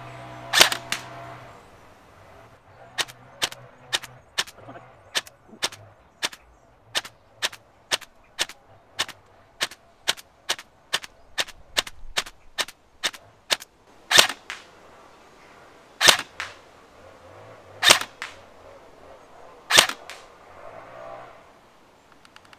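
KWA ERG electric-recoil airsoft rifle firing single shots of 0.28 g BBs, each a sharp crack. One loud shot under a second in, then a quick even run of about two and a half quieter shots a second, then four loud shots about two seconds apart near the end, the last shots of a 30-round low-cap magazine.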